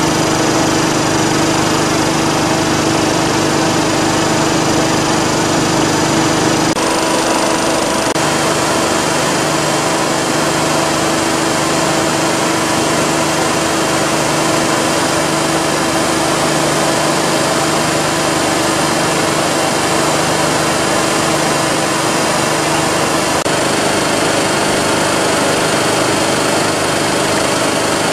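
J.P. Sauer WP311L ship's air compressor running steadily: a loud, even machine noise with a steady hum. Its sound shifts slightly about seven seconds in.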